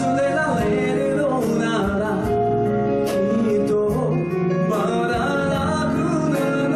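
A man singing a song live into a microphone, backed by a band of keyboards, guitar, bass and percussion, with cymbal accents.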